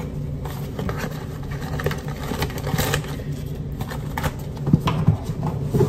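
Rustling and scraping as a box of plastic zip-top bags is handled and a bag is drawn out, over a steady low hum.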